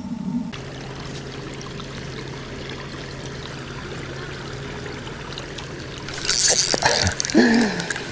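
River water trickling and lapping at the bank, steady, with a sudden louder splashy burst and a few clicks about six seconds in.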